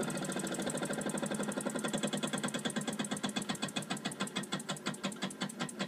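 Wilesco D5 toy steam engine running, its cylinder beating out a fast, even chuff with each turn of the flywheel. The beats slowly get quieter as the fuel fire under the boiler dies down and steam pressure falls.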